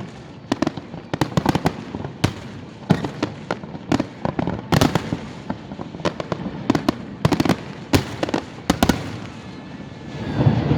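Fireworks display bursting: dozens of sharp bangs and crackles in irregular rapid clusters, stopping about nine seconds in. A steady noise swells near the end.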